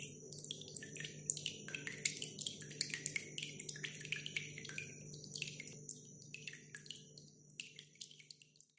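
Water drops dripping and splashing in quick succession, many sharp high drips over a steady low hum, thinning out and fading away near the end.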